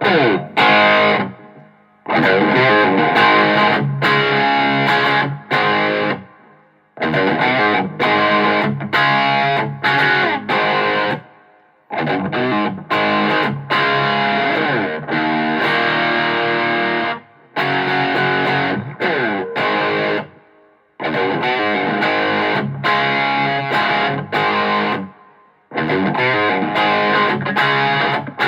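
Overdriven electric guitar: an Epiphone Les Paul gold top played through a Joyo Tweedy amp with a Boss SD-1 overdrive pedal and reverb. It plays a hard-rock chord riff in phrases of about four to five seconds, each ending in a brief stop.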